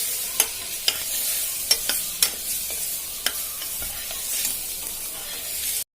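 Onion, tomato, spice and ginger-garlic masala sizzling in hot oil as it is stirred and sautéed, with a spoon clicking sharply against the pan about half a dozen times. The sound cuts off abruptly near the end.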